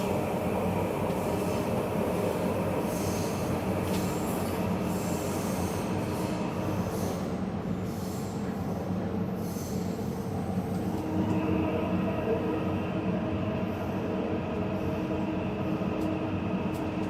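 Taipei Metro Zhonghe–Xinlu line train running on its rails: a steady rumble with a humming tone, and a further steady tone joins about eleven seconds in.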